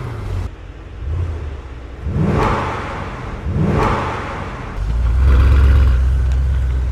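Brabus GT 900 Rocket's twin-turbo V8 blipped twice in quick revs, each climbing and falling back. About five seconds in, a louder, steady, deep exhaust rumble takes over.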